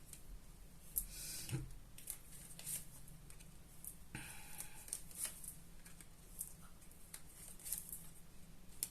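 Tarot cards being handled and drawn from a deck: faint rustling with a few soft, sharp card snaps.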